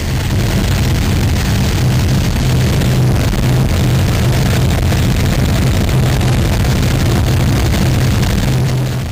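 Drying drum of an asphalt plant running with its burner firing: a steady, loud mix of flame and machine noise over a low hum. It begins to fade near the end.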